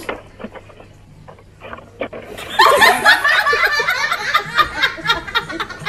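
A low steady hum with a few soft knocks, then from about two and a half seconds in, loud, continuous laughter.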